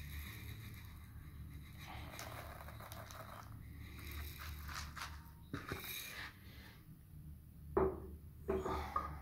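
Coarse rock salt being spread and pressed flat by hand in a plastic container, a soft gritty scraping. A couple of louder knocks of handling come near the end.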